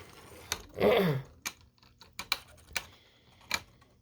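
3D-printed Beyblade spinning tops clashing and knocking against each other and the plastic stadium: irregular sharp clicks, about seven across the stretch.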